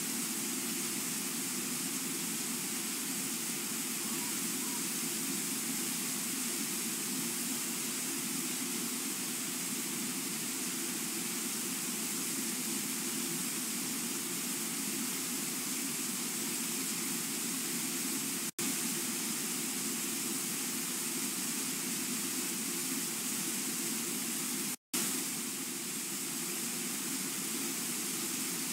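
Steady rush of the waterfall at Brooks Falls, the river pouring over the ledge, picked up by a livecam microphone. The sound cuts out for an instant twice, about two-thirds of the way in and again a few seconds later.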